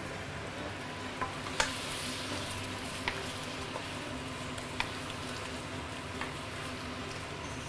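Chicken and potato pieces in curry paste and freshly added milk sizzling in a stainless-steel wok as they are stirred with a spatula, a steady frying hiss with a few light taps of the spatula on the pan.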